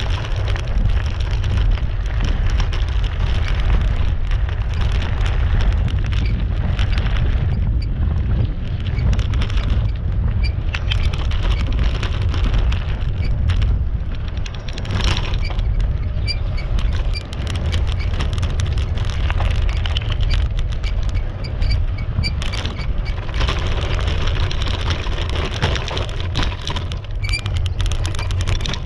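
Bicycle tyres crunching and rattling over a gravel and dirt trail while riding, with wind buffeting the microphone as a steady low rumble underneath.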